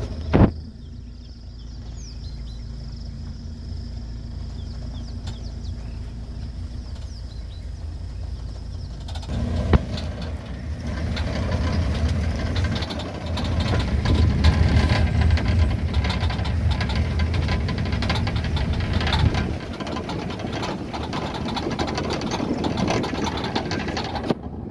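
Vehicle engine idling with a steady low rumble. There is a sharp knock about half a second in, and a rougher rustling noise joins from about nine seconds in.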